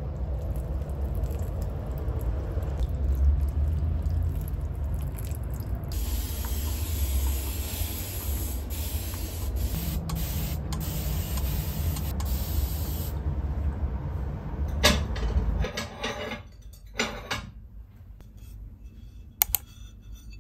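Water sprayed over potted plants: a steady hiss for several seconds over a low rumble. Near the end, a few light clicks and clatters as a ceramic plate is set down on a cloth.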